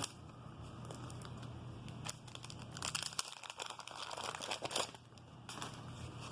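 Wax-paper wrapper of a baseball card pack crinkling and tearing as it is ripped open, the rustling bunched in the middle few seconds.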